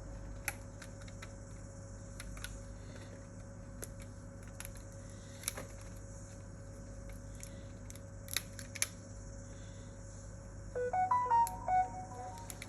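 Scattered light clicks and taps of small handling, then about eleven seconds in a short electronic jingle of stepped beeps from a Samsung Galaxy A10 phone's speaker.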